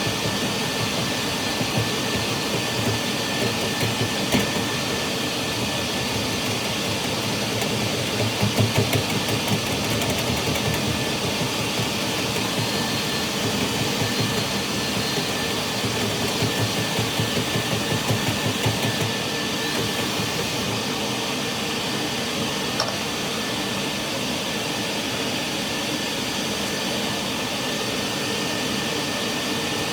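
Dryer-vent cleaning vacuum running steadily with a faint whine, broken by spells of irregular low rattling about a third of the way in and again past the middle.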